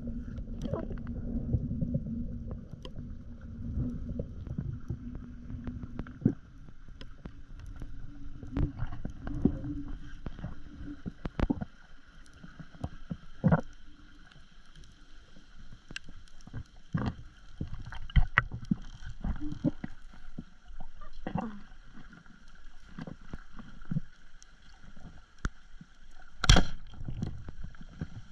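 Underwater sound at a reef: a low rumble of water moving past the camera housing for the first ten seconds or so, then scattered sharp clicks and cracks. About 26 seconds in comes the loudest crack, the speargun firing into a fish.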